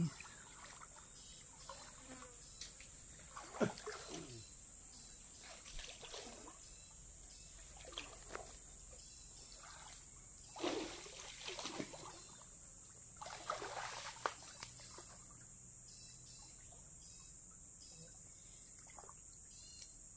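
Steady high-pitched chirring of insects, with water splashing and trickling now and then, in short bursts every few seconds.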